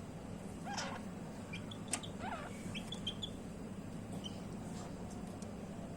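Birds calling: two louder calls, about one and two seconds in, with short high chirps scattered among them, over a steady low hum.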